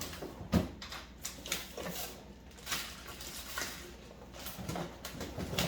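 Kitchen handling noises: rustling and a string of light knocks and clicks, with one sharper knock about half a second in.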